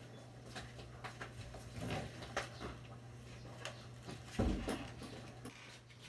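A pot of mung bean and coconut milk stew at the boil, bubbling with irregular soft pops and clicks over a steady low hum. There is a dull thump about four and a half seconds in.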